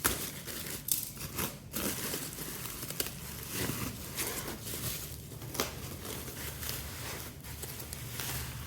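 Packaging being unwrapped and handled: irregular crinkling and rustling with scattered sharp clicks, over a low steady hum.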